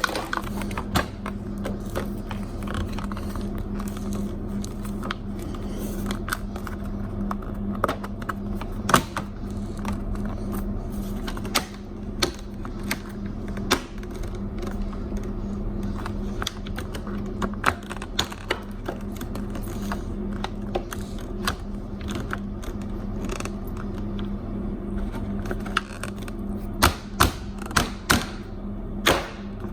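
Refrigerator's bottom grille being handled and fitted back into place: scattered clicks and knocks, several in quick succession near the end, over a steady low hum.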